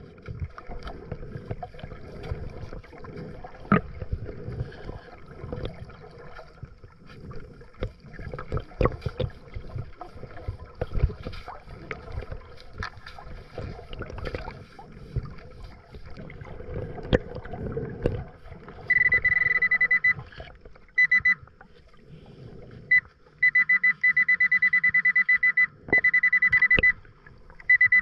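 Underwater rustling and knocks of a hand digging and fanning the sand. About two-thirds in, the Nokta Pulse Dive underwater metal detector starts its rapid high beeping alert in several bursts as its coil passes over a buried target, and this beeping is the loudest sound.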